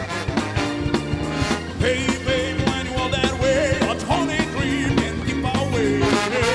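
Live rock band playing loudly with drums, bass, guitar and saxophone, and a steady beat. About two seconds in, a singer comes in with a held, wavering vocal line over the band.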